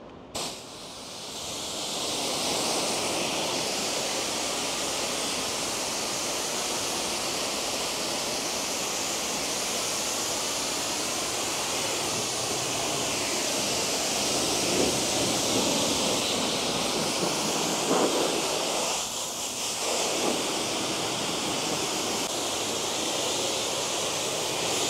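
High-pressure washer lance spraying a steady hissing jet of water onto a mini excavator's cab and bodywork, briefly easing about nineteen seconds in. This is the pre-rinse that wets down the winter road salt before cleaner goes on.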